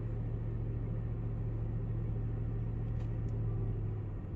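Car engine idling steadily, a low even hum and rumble that eases off slightly near the end. Two faint clicks about three seconds in.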